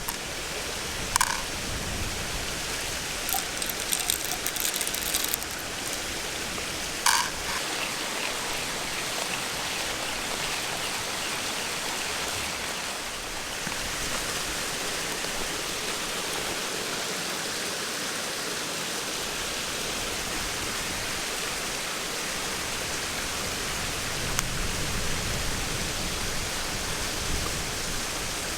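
Stream water flowing steadily, with a few short sharp clicks about a second in, in a cluster around four to five seconds in, and again about seven seconds in.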